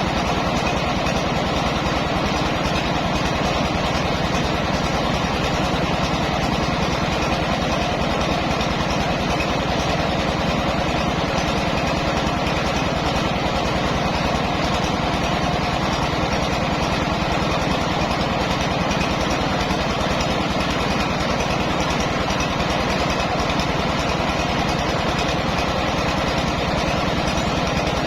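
Mobile rice milling machine running steadily, its engine and milling works making a constant, even mechanical noise.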